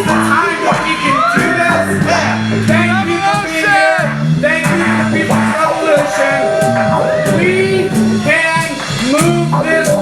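Live band playing old-school American roots music: a walking bass line and a steady drum beat under a singing voice.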